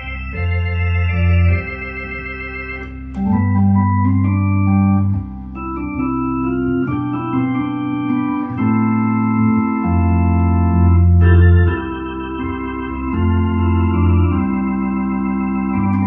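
Hammond A100 tonewheel organ playing sustained chords over a bass line that moves in steps every second or two, some of the held notes wavering slightly.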